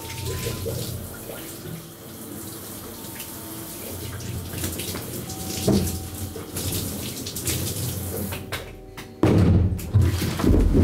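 Shower water running steadily in a tiled bathroom. About nine seconds in, loud music with a deep beat suddenly comes in.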